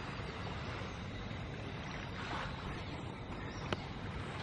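Gentle surf washing onto a sandy beach from a calm sea, with wind rumbling on the microphone. One sharp click a little before the end.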